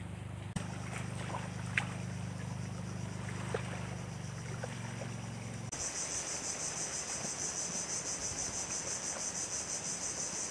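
For the first half, a low steady hum with a few light clicks and taps. After a sudden cut about halfway, insects chirp in a high, steady pulsing trill of about three pulses a second.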